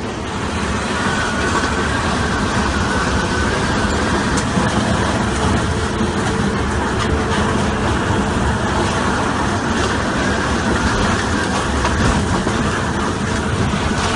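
Violent storm wind blowing past buildings: a loud, steady rushing noise with no let-up, as debris flies through the air.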